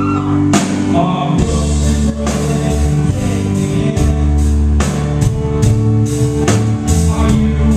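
A live folk-rock band playing with banjo, cello, acoustic guitar and a bass drum keeping a steady beat under sung vocals.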